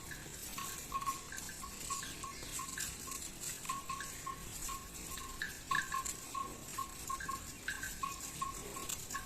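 A herd of water buffalo walking, with an irregular patter of hooves and short, repeated high-pitched chirps mixed in, two or three a second.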